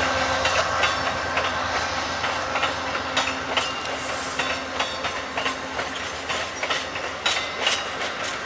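Amtrak Amfleet passenger coaches rolling past, their wheels clicking over rail joints in a repeated clickety-clack over a steady rolling rumble. The clicks grow more distinct after a few seconds.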